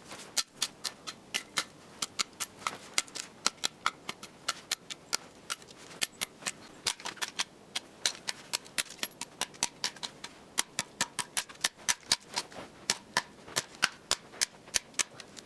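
Machete-kukri hybrid blade of Damascus steel chopping small dry spruce branches: a rapid, irregular run of sharp cracks, about four a second.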